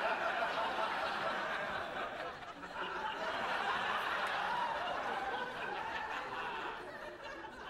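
Studio audience laughing, a dense crowd laugh that dies away near the end.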